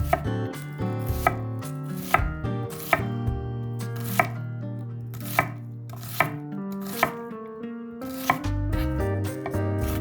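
Kitchen knife chopping on a cutting board, striking about once a second at an uneven pace, over background music.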